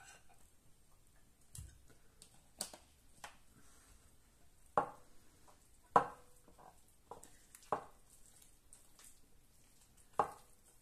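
Hands mixing and kneading bagel dough in a ceramic bowl: soft squishing, with about five sharp knocks against the bowl, several leaving a brief ring from the bowl.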